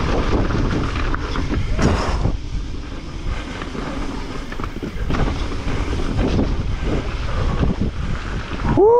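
Wind buffeting the camera microphone as a mountain bike rides downhill, with tyre rumble and frequent knocks and rattles from the bike over rough ground. A brief rising tone sounds near the end.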